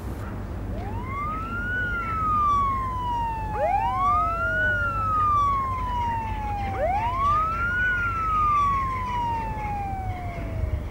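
Siren wailing: three slow cycles, each a quick rise in pitch followed by a long falling slide, over a steady low rumble of noise. It cuts off suddenly at the end.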